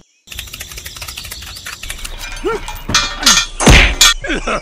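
Cartoon sound effects: a fast run of clicks and a few short squeaky pitch glides, then a loud whack about three and a half seconds in.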